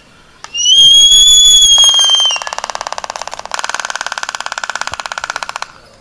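Laysan albatrosses in courtship dance: a high whistled call lasting about a second and a half, then a rapid, even clatter of bill-clappering for about four seconds.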